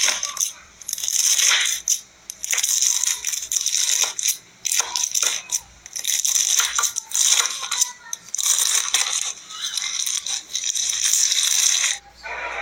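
Slime being squeezed and poked, giving repeated bursts of crisp crackling and clicking about once a second.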